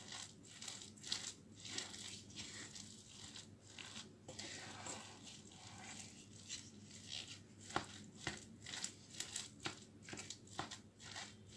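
White plastic rice paddle stirring and folding freshly cooked sushi rice in a pot, mixing in the rice vinegar: faint, irregular soft scrapes and small taps against the pot.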